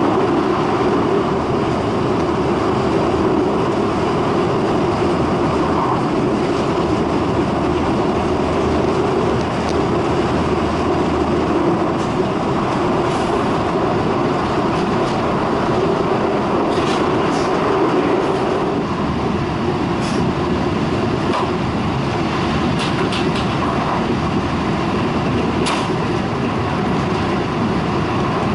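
Steady running noise of a Shinkansen bullet train, heard from inside the passenger car, with a few faint ticks in the second half.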